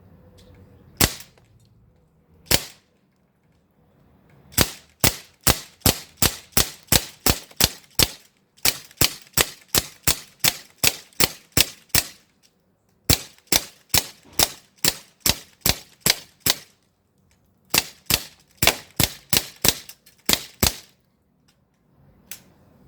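CO2-powered H&K MP5 PDW replica BB gun firing 4.5 mm steel BBs with sharp pops. Two single shots come first, then four strings of shots in quick succession at about three a second, with short pauses between strings, and one last single shot near the end.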